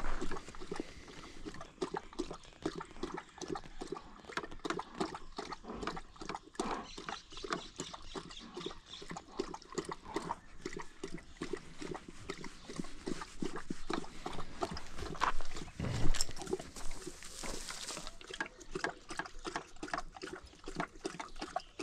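Large livestock guardian dog lapping water in a quick, steady run of wet laps, drinking hard because it is very thirsty. A single louder thump comes about sixteen seconds in.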